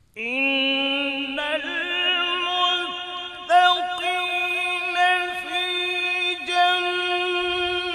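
A male qari reciting the Qur'an in melodic tajweed style: one long sung phrase that begins suddenly after a pause, its pitch stepping up about a second and a half in and then held with small ornaments.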